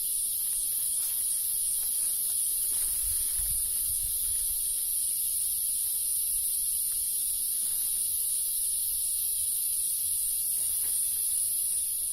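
Dense chorus of forest insects: a steady, shrill, very high-pitched hiss with a slight pulsing.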